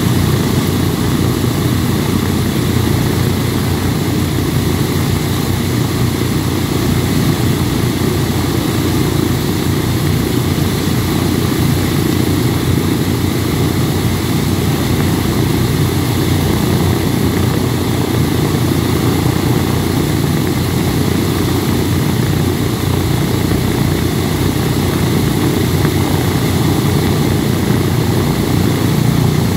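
Boeing B-17 Flying Fortress's four Wright R-1820 Cyclone nine-cylinder radial engines idling together, a steady, even propeller-driven rumble.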